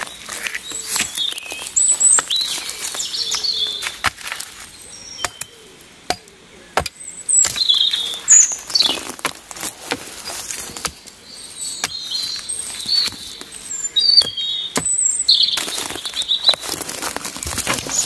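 Small birds chirping in short, high calls, with sharp, irregular knocks of a hatchet striking a thin dead branch as it is trimmed. Near the end there is a burst of rustling.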